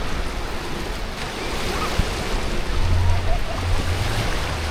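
Steady rush and splash of water-park water, with faint distant voices calling out over it.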